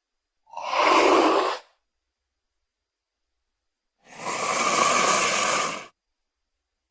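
Two breathy hissing exhalations from a giant snake creature's sound effects. The first is short, and a longer, steadier one follows about three seconds later.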